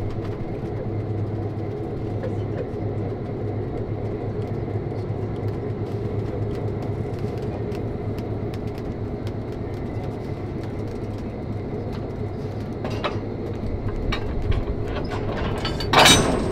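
Diesel locomotive (an EMD FP7) running close behind the caboose: a steady low engine drone over the rumble and light clatter of the train on the rails. A brief loud rush comes near the end.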